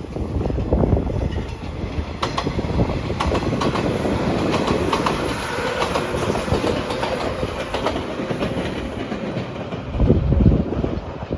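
Train passing close by, its wheels clacking over the rail joints in a steady run of clicks, with a louder low rumble near the end.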